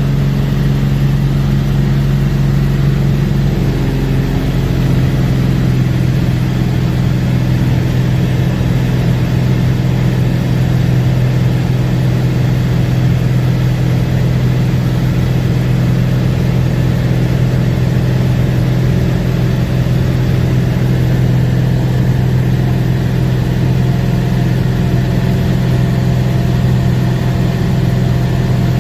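Cessna 206 single-engine plane's piston engine and propeller running steadily with a strong low drone, the pitch shifting slightly a few seconds in.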